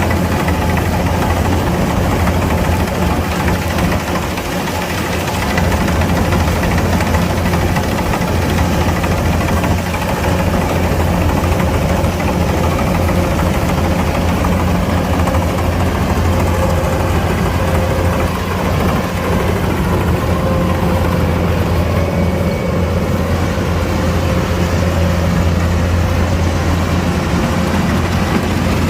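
Kubota DC-105X combine harvester running steadily while harvesting rice: a continuous low diesel engine drone with a faint steady whine over it.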